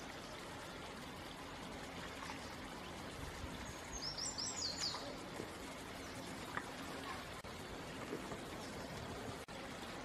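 Steady trickle of shallow running water, with a bird giving a short run of about five quick, high, falling notes about four seconds in.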